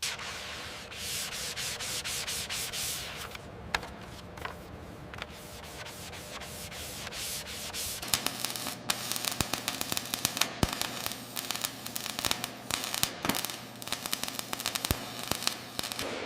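Hand-sanding or rubbing on a surface, rhythmic strokes at first. About eight seconds in it changes to a faster run of sharp scratching clicks.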